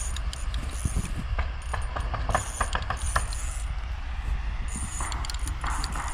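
Small spinning reel on a light ice-fishing rod clicking in irregular bursts while a hooked steelhead is fought on light line, turning into a denser rasping stretch near the end.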